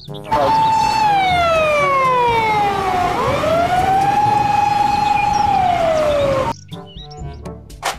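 Japanese police patrol car siren wailing in long, slow sweeps: it falls, rises again and holds, then falls once more before cutting off about six and a half seconds in.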